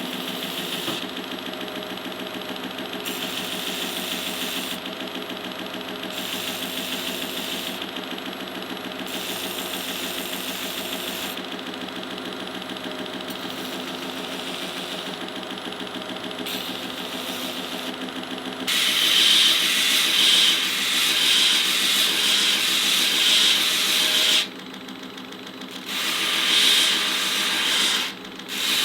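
Electric workshop power tool running steadily with a motor hum. About two-thirds of the way in, a louder abrasive grinding noise starts, drops away briefly twice and comes back.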